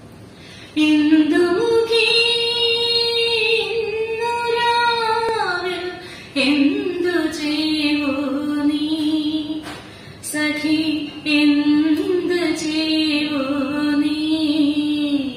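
A woman singing solo into a microphone without accompaniment, in long, held, gliding notes. There are short breaks for breath about six and ten seconds in.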